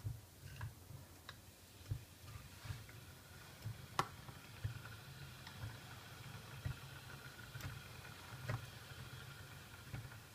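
Quiet handling sounds at a lever espresso machine: soft irregular low bumps, with a sharp click about four seconds in as a ceramic espresso cup is set down under the portafilter, and a few lighter clicks later. A faint steady high tone runs from about then on.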